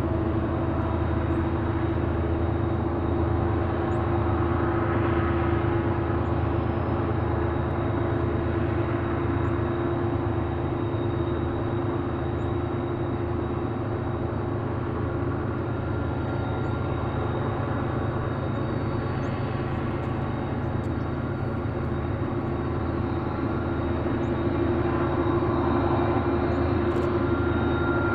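Diesel-electric freight locomotives running: a steady engine drone with a held hum, getting a little louder near the end.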